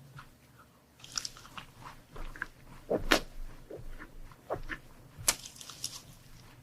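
Close-miked biting and chewing of crunchy desserts: small crisp crackles with two loud sharp crunches, about three seconds in and again about five seconds in.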